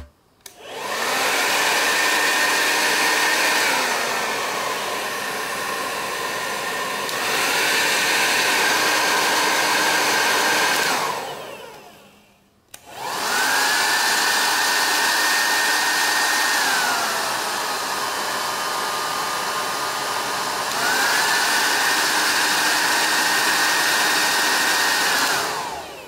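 Umseon hair dryer switched on and running with a steady whine and rush of air. It is stepped down to a lower fan speed and back up, then switched off and spins down. It is started again, goes through the same high-low-high speed steps, and winds down near the end.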